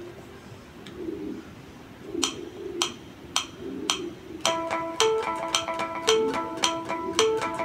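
Unplugged electric guitar picked with a plectrum: a few pick clicks about half a second apart, then from a little past halfway, ringing natural harmonics at the 7th fret of the A and D strings played in a quick, even rhythm with accented notes.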